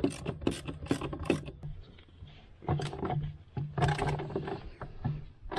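Half-inch drive hand ratchet clicking as a bolt is turned out, a quick run of about five clicks a second, then a pause and more uneven clicks and metal scraping.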